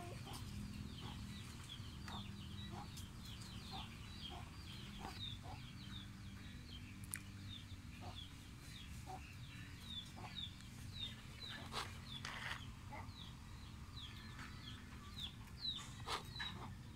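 Bird chirping: a long series of short, high chirps, each sliding down in pitch, about two a second, over a steady low rumble.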